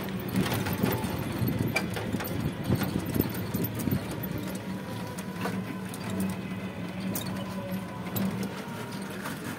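Ride in a rickshaw along a busy street: a steady hum with many scattered rattles and clicks from the vehicle and the road.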